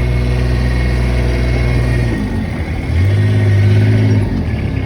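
Side-by-side utility vehicle's engine running while driving; the engine note dips about two seconds in, then comes back louder for about a second before settling again.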